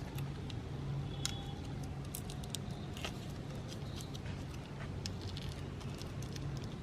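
Electric meat grinder running with a steady low hum, with irregular crackles and snaps as items are crushed through it.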